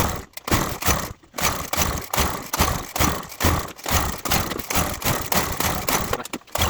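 Petrol lawnmower being pull-started again and again, about two short rasping pulls a second, without the engine catching.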